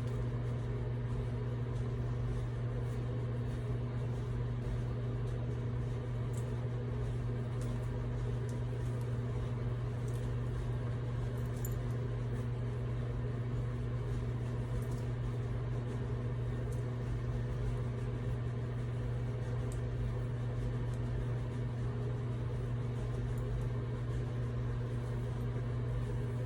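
A steady low hum, unchanging throughout, with a few faint light clicks.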